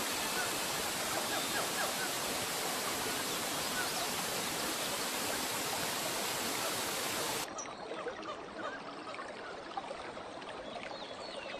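Waterfall rushing steadily, with short bird chirps above it. About seven seconds in, the sound cuts abruptly to a quieter stretch of running water with more bird chirps and a rapid low trill near the end.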